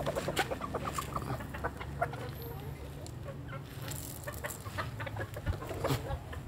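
Japanese bantam chickens clucking while they feed, with many quick clicks of beaks pecking at scattered rice and grain.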